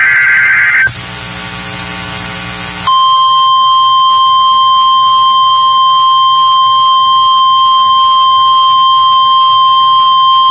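End of a NOAA Weather Radio SAME header data burst, a couple of seconds of radio hiss, then the 1050 Hz weather-radio warning alarm tone. The tone is a single steady high tone held for about eight seconds and cuts off suddenly, marking the start of an emergency alert.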